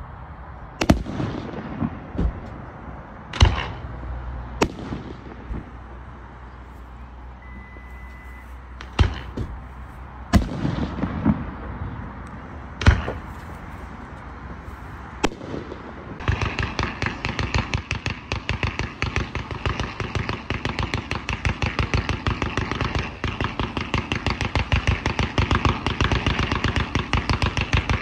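Fireworks going off: scattered single loud bangs, each with an echoing tail, for about the first sixteen seconds. Then a dense rapid crackling of many sharp reports a second sets in and keeps going.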